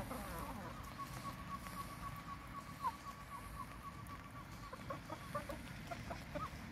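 Young game chickens of Asil type clucking and calling softly while foraging, with a steady high trill of quick repeated notes for a few seconds in the middle and short scattered calls near the end.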